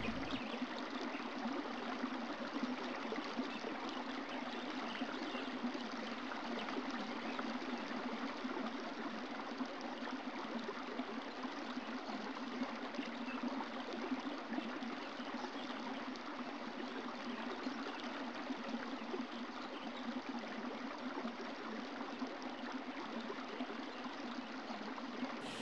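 Steady running water of a stream, an even rushing hiss with no breaks or changes.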